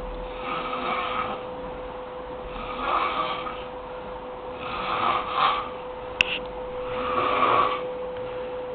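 A sleeping man snoring loudly: four snores about two seconds apart, with a single sharp click about two-thirds of the way through. A steady hum runs underneath.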